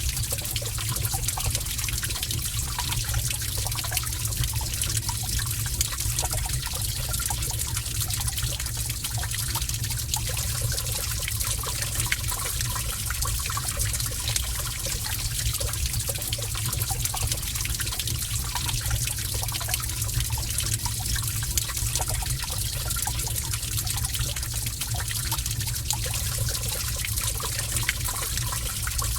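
Cave water ambience: water running and trickling steadily, with many small splashes and drips, over a steady low rumble.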